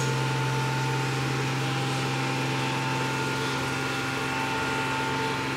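A steady mechanical hum: a strong low drone with a few faint steady higher tones, unchanging in level.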